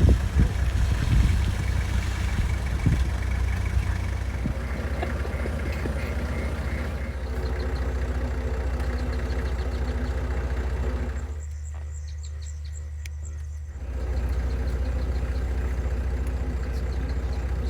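An engine running steadily with a low hum, with a few knocks and bumps in the first seconds. About two-thirds of the way through, the deep hum drops out for a couple of seconds, then returns.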